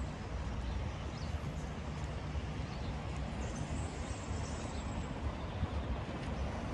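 Steady outdoor ambience: an even low rumble and hiss.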